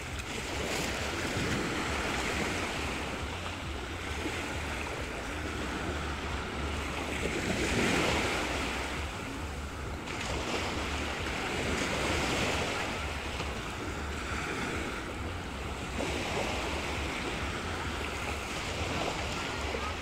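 Small sea waves washing up onto a sandy beach, the wash swelling and fading every few seconds, over a steady low rumble of wind on the microphone.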